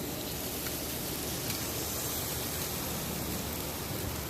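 Chicken wings sizzling on the hot grate of a charcoal grill, a steady hiss.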